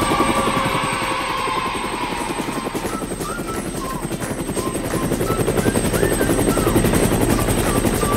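Helicopter sound effect: the rotor chops rapidly and steadily as the cartoon helicopter lifts off and flies.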